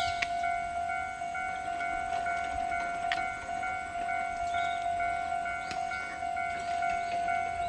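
Japanese railway level-crossing alarm ringing: an electronic bell sounding a steady tone with higher tones pulsing on and off in an even, repeating rhythm, the warning that a train is coming.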